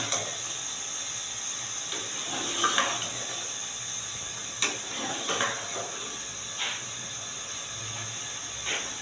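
Steady hiss of lit gas stove burners, with a handful of short clinks and scrapes of a metal ladle stirring in a stainless steel pot.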